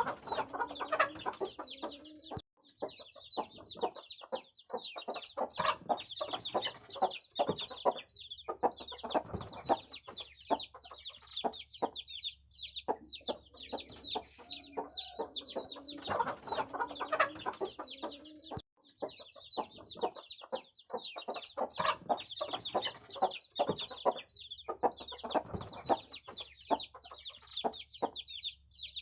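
A flock of aseel chicks peeping constantly, many quick high falling peeps overlapping, with lower clucking calls mixed in. The sound cuts out briefly twice.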